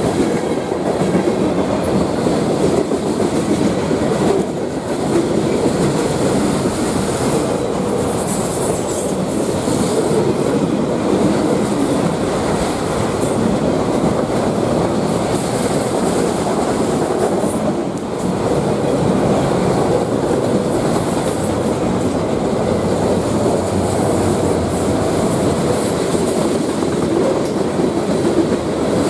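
Cars of a mixed manifest freight train rolling past at close range: a steady, loud rumble of steel wheels on rail with clickety-clack over the rail joints.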